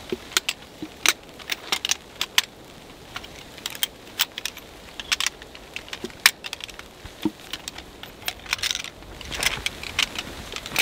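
A tripod being folded up by hand: irregular sharp clicks and clacks of its legs and leg locks knocking together and snapping shut.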